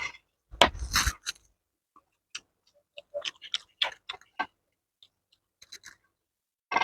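Close-up eating noises: chewing and small clicks and scrapes of food being handled, with a louder knock about a second in.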